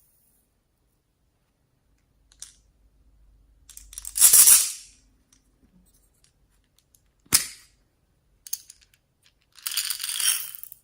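Slime being squeezed and pulled by hand: a few separate wet squishes and a sharp pop, ending in about a second of crackling.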